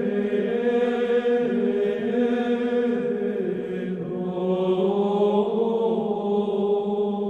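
Background music of chanted singing: long held vocal notes that move slowly from pitch to pitch.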